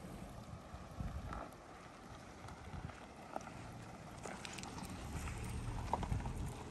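A compact SUV rolling slowly over a loose gravel and stone track: a low rumble with scattered crunches and clicks of stones under the tyres.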